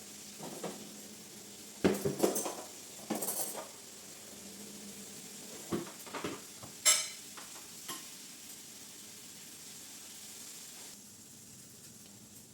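Food sizzling faintly in a pan, with a handful of sharp clinks and scrapes of a utensil against the cookware, the loudest about seven seconds in.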